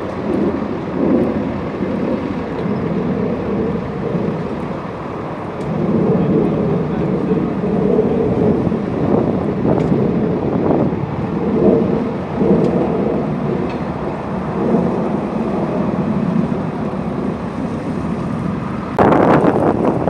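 Low, steady rumble of wind buffeting the microphone, with a few faint clicks. About a second before the end it turns suddenly louder and harsher.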